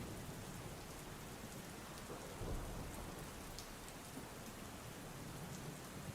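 Steady rain with a low rumble of thunder that swells briefly about two and a half seconds in; scattered drop ticks sound over the rain.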